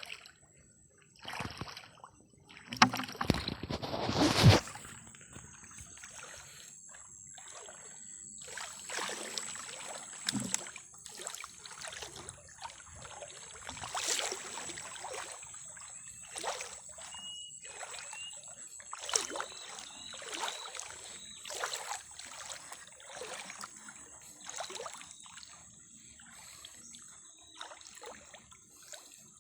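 Water splashing and sloshing in repeated, irregular strokes, with a louder burst of splashing about three to four seconds in.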